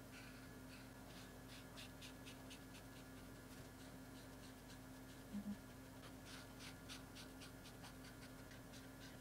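Faint scratching of a felt-tip brush pen colouring on paper, in quick runs of short back-and-forth strokes, over a low steady hum. Two brief low blips come about halfway through.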